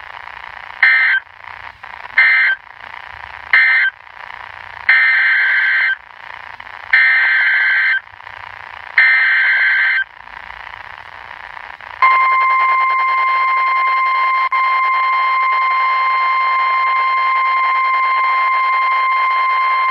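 NOAA Weather Radio Emergency Alert System signalling over radio hiss. Three short bursts of warbling SAME digital data close the previous alert; three longer bursts are the next alert's SAME header. About twelve seconds in, the steady 1050 Hz warning alarm tone begins and holds.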